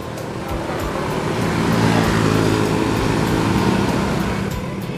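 Road traffic on a wet street: a vehicle's engine drones past close by, growing louder to a peak about two to three seconds in and then fading, over a steady background of passing traffic.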